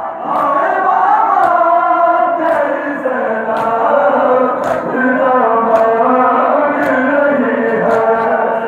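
A large crowd of men chanting a Muharram mourning lament in unison. Sharp slaps land about once a second, the beat of rhythmic chest-beating (matam).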